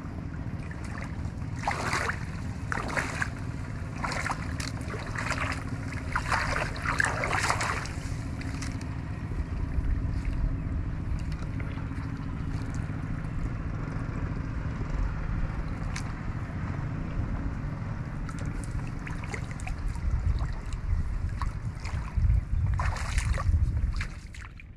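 Wind rumbling on the microphone over water, with bursts of splashing a few seconds in and again near the end.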